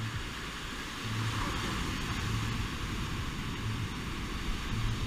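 Surf breaking and washing up a sandy beach: a steady hiss of foaming water that grows louder about a second in, over a low rumble that swells and fades about once a second.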